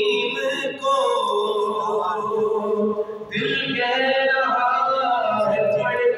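A man singing Urdu devotional verse solo into a microphone, drawing out long melodic phrases in a chant-like style.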